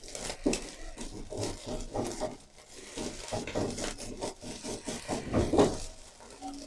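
Slotted spatula scraping and chopping scrambled egg against the bottom of a non-stick frying pan in repeated, irregular strokes, breaking the egg into small pieces. The strongest strokes come a little past the middle.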